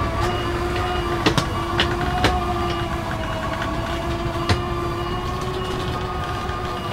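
Motorhome slide-out mechanism running as the bedroom extension travels out: a steady motor whine over the low rumble of the idling engine, with a few sharp clicks along the way.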